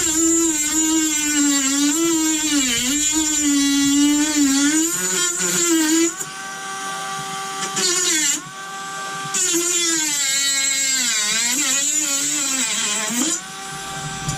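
Teccpo cordless rotary tool with a heavy-duty cutting disc grinding into a padlock shackle: a high motor whine that sags and wavers in pitch under load, over a hissing grind of disc on metal. The cut eases off about six seconds in and again near the end, and the whine runs steadier while it does.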